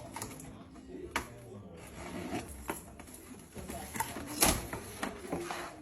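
Packaging being opened and handled by hand: scattered knocks and short rustles of a box and its wrapping, the loudest rustle about four and a half seconds in.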